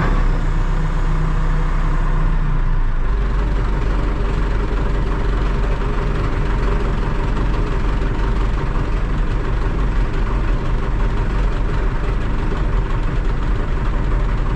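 Diesel engine of a Terex TLB-815 backhoe loader running steadily, its note shifting about three seconds in.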